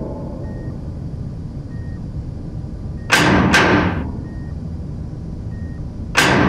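Sound-effect reconstruction of knocking heard in space: two heavy knocks in quick succession, each ringing out, about three seconds in and again at the end, over a steady low rumble.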